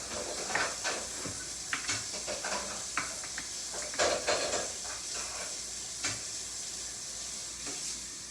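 Homemade slime being stirred and squished by hand, with irregular sticky crackles and small clicks and a louder squelch about four seconds in.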